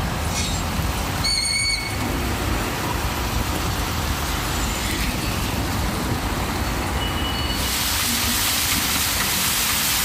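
Steady rushing noise of heavy rain and running water with road traffic on wet streets. A short high-pitched squeal comes about a second in, and the hiss grows brighter about three-quarters of the way through.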